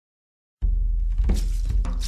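Background music starts suddenly about half a second in, with a heavy bass and sharp percussive hits.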